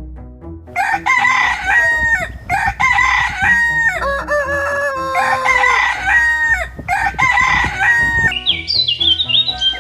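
Rooster crowing several times in a row, loud pitched calls about a second or so each, with a higher, shorter bird call near the end. Background music plays underneath.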